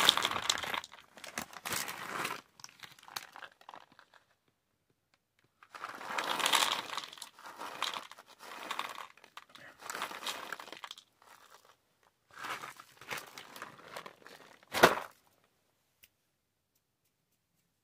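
A bag of dry cat food crinkling as it is handled, in several separate bursts, with one sharp thump near the end.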